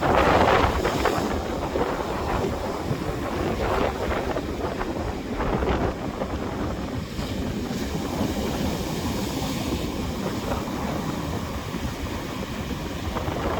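Strong wind buffeting the microphone in gusts, with the rush of surf breaking on the beach beneath it. It is loudest in the first second or so.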